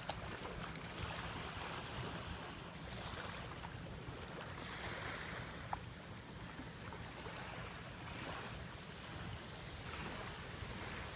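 Wind blowing on the microphone as a steady low rumble, with the soft wash of small lagoon waves lapping at the shore swelling and fading every couple of seconds. There is one small click about halfway through.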